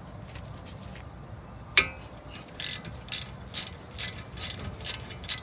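Socket ratchet clicking as it is worked back and forth, loosening a front brake caliper bolt. One sharp snap about two seconds in, then a steady run of ratchet clicks about two a second.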